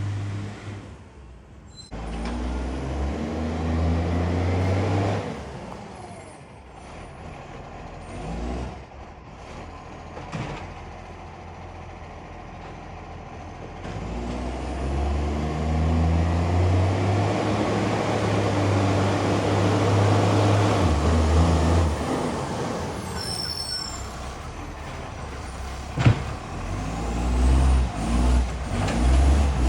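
Garbage truck's diesel engine with a loud exhaust leak, revving up and easing off twice as it pulls away, then running quieter between. A sharp crack sounds near the end.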